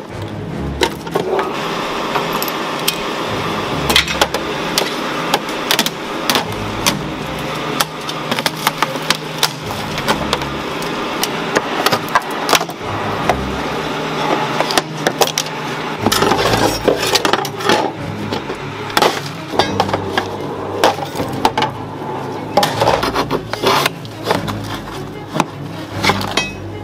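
Background music over irregular clanks and cracks of metal and plastic car parts being pried and broken loose by hand while a scrapped car is stripped. The knocks grow more frequent about two-thirds of the way in.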